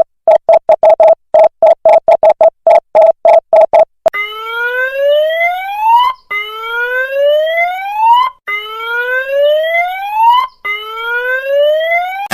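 Electronic emergency alarm tone: a fast run of short, same-pitched beeps for about four seconds, then a repeating rising whoop, each sweep climbing for about two seconds before starting again.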